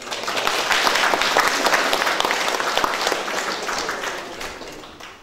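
Audience applauding: many hands clapping, starting suddenly and fading away over the last second or so.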